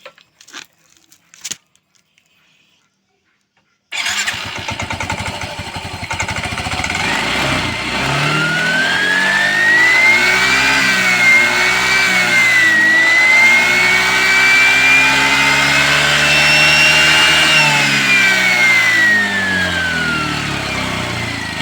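Motorcycle engine with a homemade cut-metal-plate whistle fitted, giving a turbo-like whistle ('ngiung'). The engine comes in suddenly about four seconds in after a few clicks. The revs climb and the whistle rises with them, wavers, climbs higher, then falls away as the engine slows near the end.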